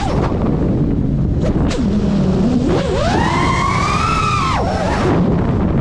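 FPV quadcopter's brushless motors: a low hum at low throttle, then a whine that rises steeply a little before halfway, holds high for about two seconds and drops away near the end, over a steady rush of wind on the onboard microphone.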